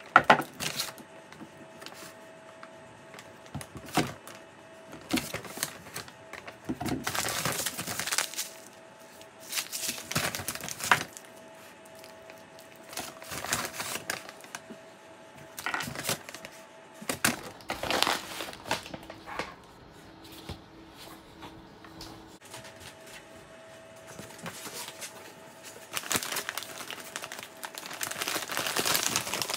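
Brown paper bag rustling and crinkling in irregular bursts as vegetables and plastic-wrapped packets are lifted out and set down on a countertop, with light knocks. Longer, louder paper rustling near the end as the sticker seal on another paper bag is pulled open.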